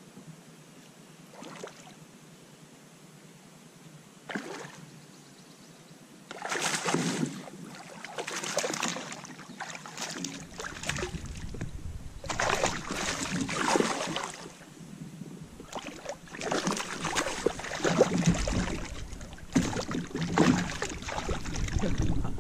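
Hooked smallmouth bass splashing and thrashing at the surface beside a kayak. The splashes come in loud bursts every few seconds, starting about six seconds in after a couple of faint ones.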